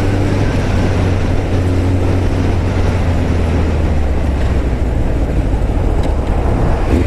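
Kawasaki ZX-9R's inline-four engine running under way over a steady rush of wind noise. The engine note drops lower about halfway through.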